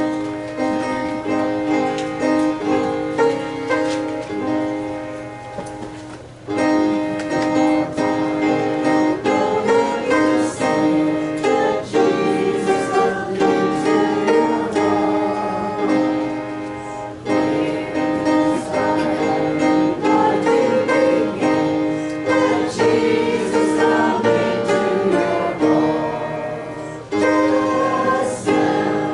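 Congregation singing a hymn with instrumental accompaniment, in long held phrases with short breaks between them.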